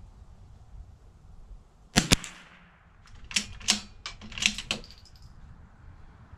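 A single shot from a Bergara B14R bolt-action .22 LR rimfire rifle about two seconds in, a sharp crack. About a second later comes a quick run of smaller metallic clicks as the bolt is worked to eject and chamber a round.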